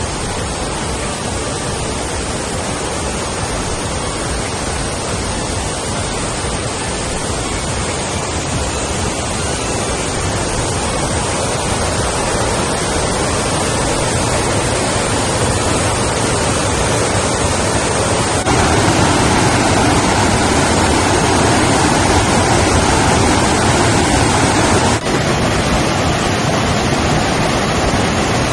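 Steady rush of flowing river water, a steady noise that becomes a little louder about two-thirds of the way through, with a brief dip near the end.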